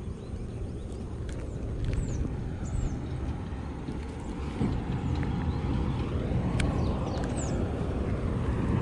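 Low, irregular outdoor rumble that swells slightly over the seconds, with a few brief, faint, high descending bird chirps.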